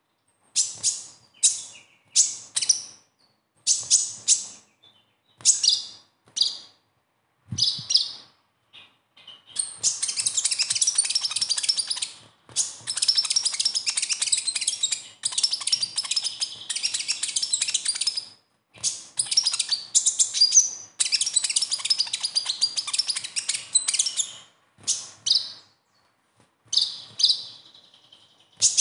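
Van Hasselt's sunbird (kolibri ninja) singing its high-pitched twittering song: short separate phrases at first, then several long, rapid, unbroken chattering runs (the 'besetan') lasting a few seconds each through the middle, and short phrases again near the end.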